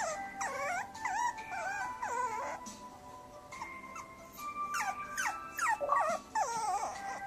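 A puppy whining and whimpering in short, wavering cries, in two clusters: one in the first few seconds and another from about five seconds in. Soft background music with held notes runs underneath.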